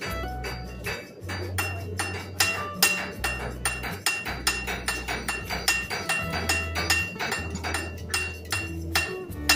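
Repeated hammer blows ringing on an anvil, several strikes a second with a bright metallic ring, over background music with a steady bass line.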